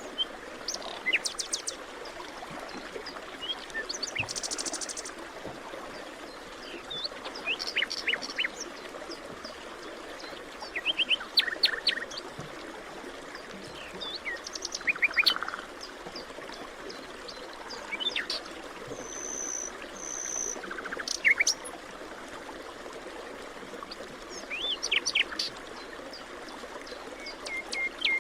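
Forest birds singing in short phrases of quick high chirps every few seconds, over a steady rushing background of running water from a stream.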